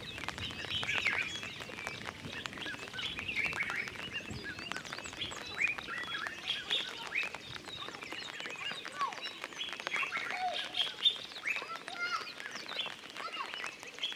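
Many wild birds chirping and calling at once: a dense chatter of short, high chirps and whistles, many sliding downward in pitch, with a few lower calls about ten seconds in.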